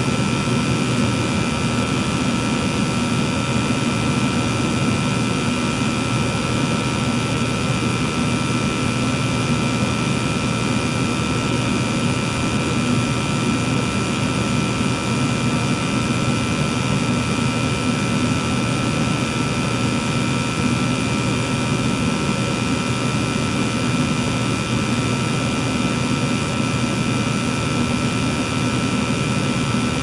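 Natural-gas furnace firing with its burners lit and the circulating blower not yet on: a steady, unbroken mechanical noise with a low hum and a few constant high whining tones.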